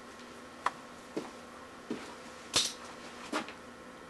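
A few short clicks and knocks, about five in four seconds, the loudest a little past halfway, from hands working a bicycle's rear-wheel quick-release skewer at the hub.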